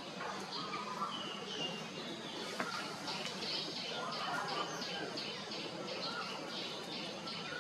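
Small bird chirping over and over, short high chirps about three a second, over a steady outdoor background hiss.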